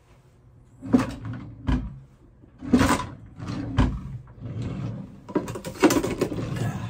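Rummaging in a low kitchen cupboard: a string of knocks and clatters as the cupboard door and the cookware inside are moved about, busiest near the end.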